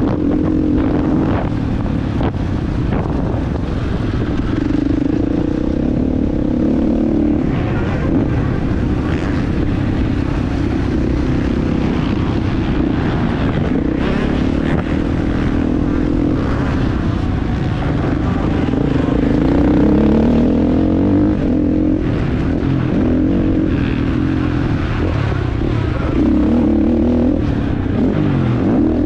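Husqvarna FC 450's single-cylinder four-stroke engine being ridden hard on a motocross track, its pitch rising and falling again and again as the rider works the throttle and gears.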